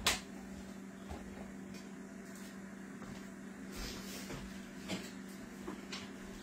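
Kitchen handling sounds: a sharp knock near the start, then a few light clicks and taps, over a steady low hum.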